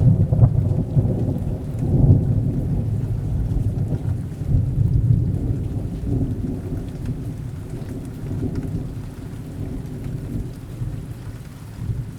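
Rolling thunder over steady rain: a deep rumble that is loudest in the first two seconds and then slowly eases off under the rain.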